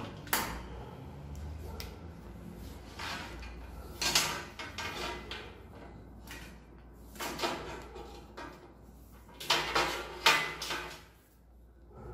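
Handling noise from a Bosch angle grinder and its power cord: several short bursts of knocking, clattering and scraping against the workbench top as the unplugged tool is lifted and its cord gathered.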